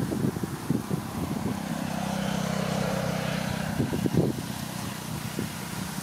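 A motor engine running, louder for a few seconds in the middle, over gusts of wind rumbling on the microphone.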